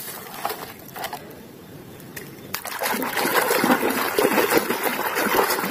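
A few sharp clicks as toys knock together while one is picked out of a plastic basket. From about three seconds in, water splashes and sloshes as a muddy toy is swished and rubbed clean by hand underwater.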